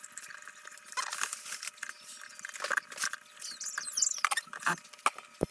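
Scattered light clicks, taps and scraping of hands working a wall light switch and its wires into the electrical box, with a few short squeaks about three to four seconds in and a sharper knock near the end.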